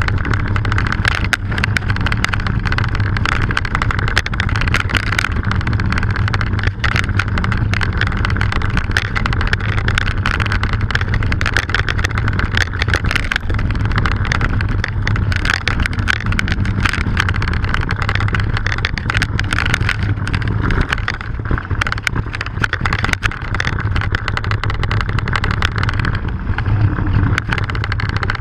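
Mountain bike riding over rough grassy ground, heard from a camera mounted on the bike: constant rattling and knocking as the bike and its cables jolt over bumps, over a steady rumble of tyres and wind on the microphone.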